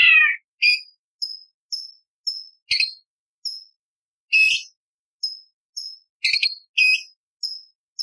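Orange-bellied leafbird singing: a rapid run of short, sharp, high chips about two a second, broken by a few louder, harsher phrases. The loudest is a rich, downward-slurred call right at the start.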